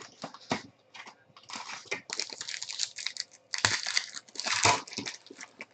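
Irregular crinkling and rustling of plastic and card stock as trading cards are handled. The rustle comes in short bursts at first and grows denser and louder from about a second and a half in.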